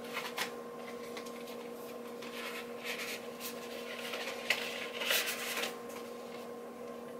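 Card and paper packaging rustling and rubbing in the hands, with short crinkles about three seconds in and again between four and a half and six seconds in, over a steady electrical hum.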